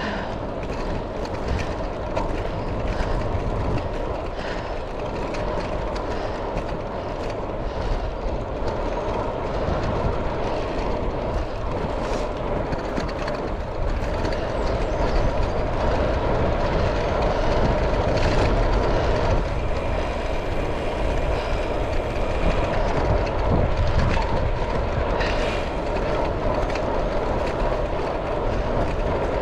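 Wind rushing over an action camera's microphone with road-bike tyres humming on tarmac, a bicycle ridden at speed. The noise grows a little louder about halfway through.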